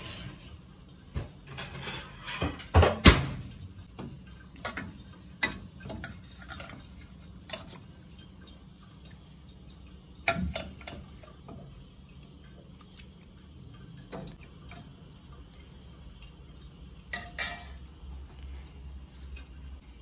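Metal ladle clinking and scraping against a steel cooking pot and a ceramic plate as chicken curry is served out: a series of irregular sharp knocks, the loudest about three seconds in.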